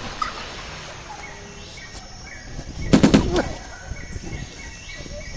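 A short burst of rapid shots, like a machine-gun burst, about three seconds in, over steady outdoor background noise.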